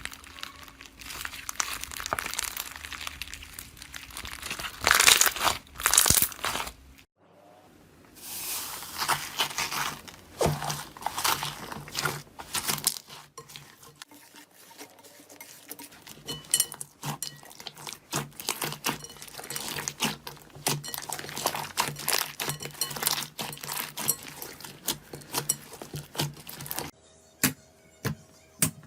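Slime being squeezed, poked and pressed by hand, crackling, popping and crunching in quick irregular clicks. It comes as a few separate short clips, the sound changing at each cut, with two louder squelching bursts about five seconds in and sparser single pops near the end.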